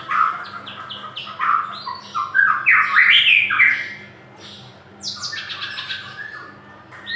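White-rumped shama (murai batu, black-tailed Medan type) singing a loud, varied song of rapid whistled and harsh notes and quick sweeps, in the full aggressive song of a fighting bird. The song peaks in a loud run of notes in the middle and then eases off.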